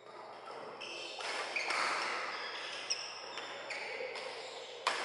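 Badminton rackets striking a shuttlecock during a doubles rally: sharp hits about three times, the last near the end. Short squeaks of court shoes on the court mat come between the hits.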